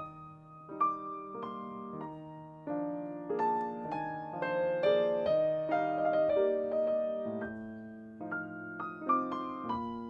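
Background piano music: a slow melody of single notes and chords.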